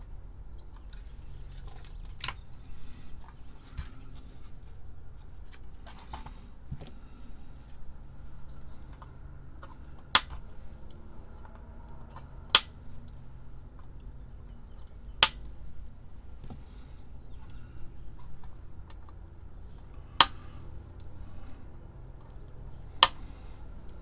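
Side cutters snipping excess component leads on a circuit board: five sharp, loud snaps spread through the second half, with lighter handling clicks before them.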